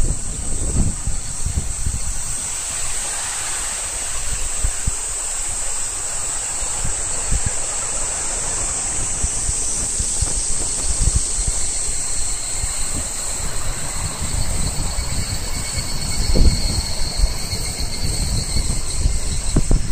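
Cicada chorus: a steady high-pitched shrill, with a lower pulsing call joining about twelve seconds in. Low wind rumble underlies it throughout.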